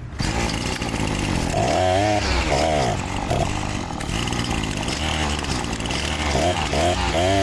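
Husqvarna 525L trimmer's small two-stroke engine starting right at the beginning and running, revved up and down several times. It runs sluggishly, short of fuel, a sign of a lean carburettor setting.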